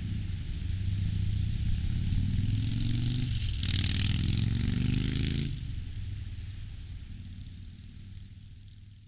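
Engine running steadily, revving up louder for about two seconds near the middle, then fading away near the end.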